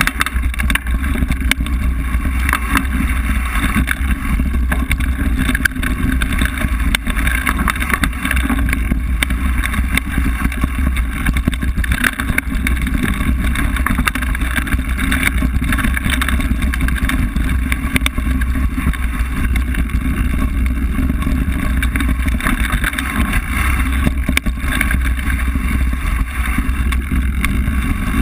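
Mountain bike riding down a rough forest dirt trail, heard through the bike-mounted camera's microphone: a steady rumble of wind and tyres on the ground, with many small rattles and knocks from the bumps.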